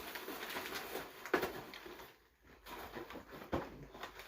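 Handling noise from a wrapped gift box: rustling, with two short knocks, about a second in and again past three seconds.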